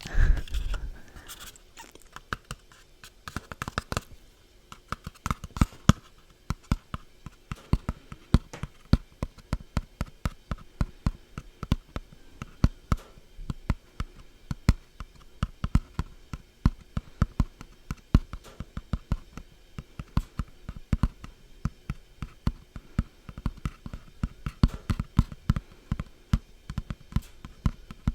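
Repeated light tapping and scratching on makeup packaging, several sharp taps a second, with a louder handling bump just after the start.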